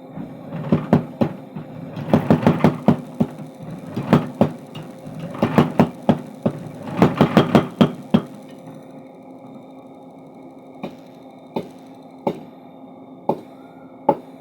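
Mechanical power hammer forging hot steel bar into a crowbar: quick runs of heavy blows, several a second, over the steady hum of the machine's motor. After about eight seconds the runs stop, leaving lighter single blows a little under a second apart.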